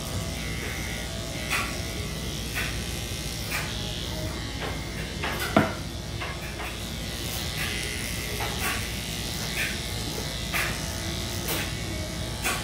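Electric dog grooming clippers running steadily while the body of a Lhasa Apso is clipped. Faint ticks come about once a second, and there is one short louder sound about halfway through.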